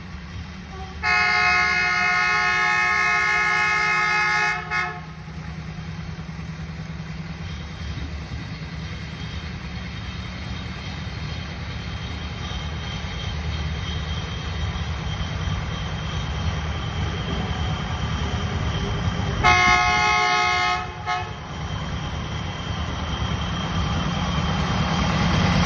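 Small narrow-gauge diesel locomotive approaching: it sounds a long horn blast about a second in and a shorter one near the end, its diesel engine running steadily and growing louder as it nears.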